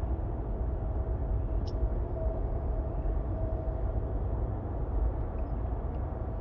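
Steady low rumbling background noise with a faint steady hum that fades out about halfway through.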